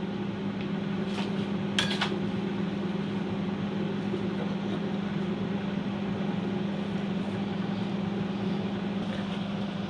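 A steady low mechanical hum, like a fan or appliance running, with two short sharp sounds such as clinks about one and two seconds in.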